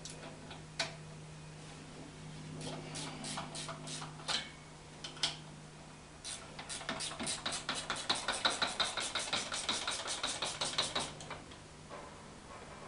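Hand tools clinking and knocking against metal parts a few times, then a ratchet wrench clicking rapidly and evenly, about six clicks a second, for several seconds past the middle.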